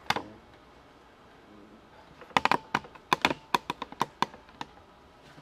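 A single sharp click, then after a pause a quick irregular run of about a dozen sharp clicks and taps from hard objects being handled, in the middle of the stretch.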